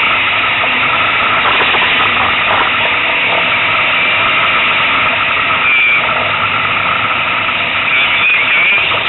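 Loud, steady cabin noise of a rally car at speed: the engine running hard under road noise.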